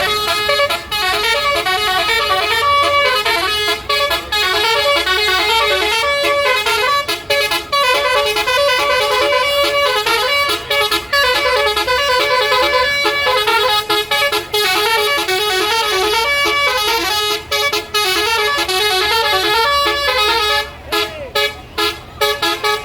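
Indonesian bus basuri (telolet) musical horn playing a tune of quickly changing notes, with a few short breaks near the end.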